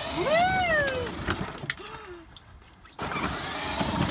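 Battery-powered ride-on toy GMC pickup's electric drive motors whirring as it pulls away across the pavement, with a loud "woo!" cheer about half a second in.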